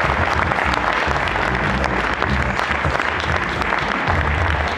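A crowd applauding steadily, with music playing low underneath.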